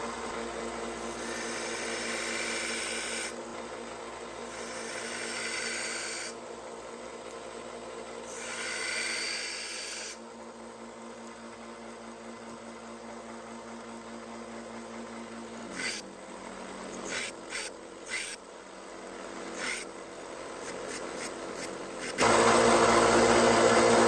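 Central Machinery bench belt sander running steadily while the steel blade of a Spyderco Dragonfly 2 is pressed to the belt, regrinding its broken tip. There are three grinding passes of two to three seconds each in the first ten seconds, then a few brief lighter touches. About two seconds before the end the sound jumps suddenly to a much louder steady noise.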